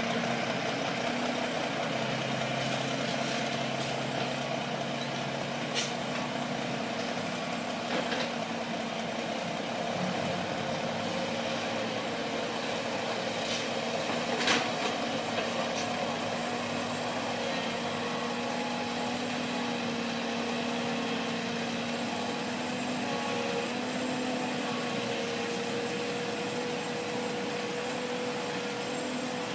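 Diesel engine of heavy earthmoving machinery running steadily, with a few short sharp knocks about six, eight and fourteen seconds in.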